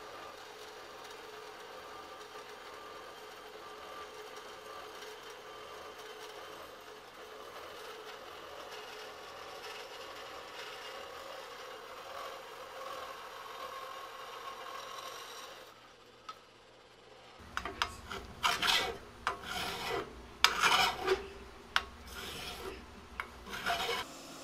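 A vertical bandsaw cuts through an extruded aluminum heat sink with a steady rasping hiss and a faint whine. About two-thirds of the way in the sawing stops. After a short lull, a drill bores holes in the aluminum heat sink in irregular loud bursts over the hum of its motor.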